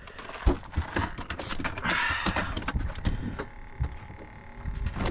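A run of irregular knocks and clicks, the sharpest about half a second in.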